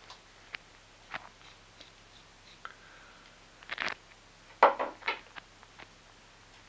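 Scattered metal clicks and knocks from handling the jaws of a homemade fly-tying vise and fitting them into the vise head. A short cluster of louder knocks comes about four and a half seconds in.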